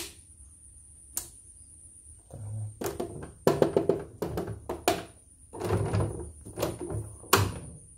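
Music playing, with a sharp click at the start and another click about a second in.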